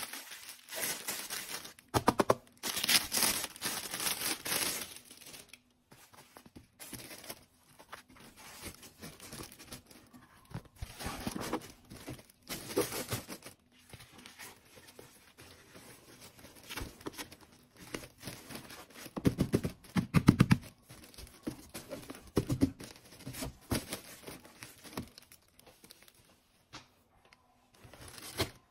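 Plastic wrapping crinkling and tearing as packaged items are handled and unwrapped in a cardboard box, in irregular bursts with short pauses; the loudest bursts come a few seconds in and again about two-thirds of the way through.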